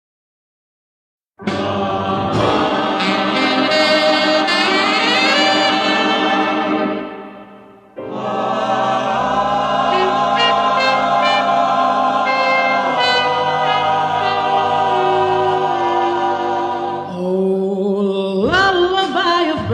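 Background music: silence for about a second and a half, then an instrumental passage that fades out about eight seconds in. A second passage follows, and singing comes in near the end.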